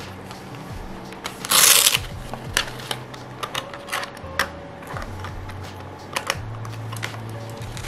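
Hands handling a rugged silicone tablet case with a hook-and-loop hand strap: a short rasping burst about a second and a half in, then scattered clicks and taps of the case and strap being worked.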